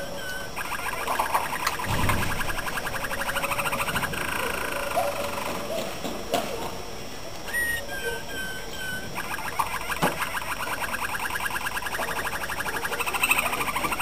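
Male Malinois (Waterslager) song canary singing: long fast rolls of rapidly repeated notes, broken near the middle by a short run of separate piping notes before the rolls start again.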